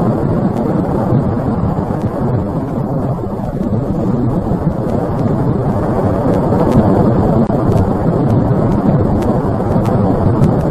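Wind and fire of a fire tornado: a steady, low rushing noise that swells slightly about halfway through.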